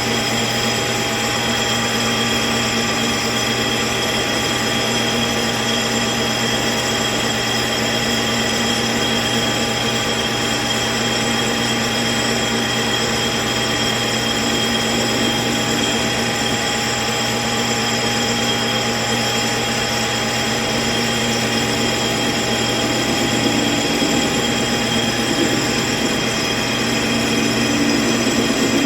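LeBlond engine lathe running at a high spindle speed while a carbide insert turns down a hardened steel shaft: a steady machine hum with several high, even whining tones, growing slightly louder about three-quarters of the way through.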